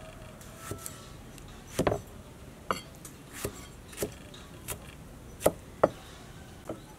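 Kitchen knife cutting tomatoes into wedges on a wooden chopping block: irregular knocks as the blade goes through and strikes the wood, about ten in all, with a short flurry about two seconds in and the loudest pair near the end.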